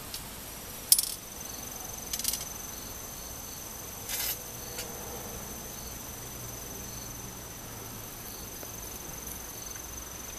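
An insect singing steadily on one high tone, with a few brief scratchy clicks in the first half, the loudest about a second in.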